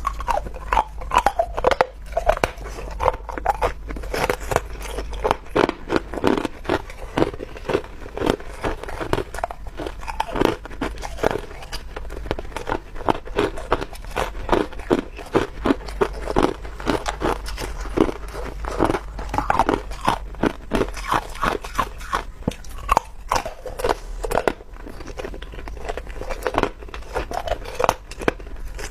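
A person biting and chewing chunks of clear ice, with loud, irregular crunches coming several times a second.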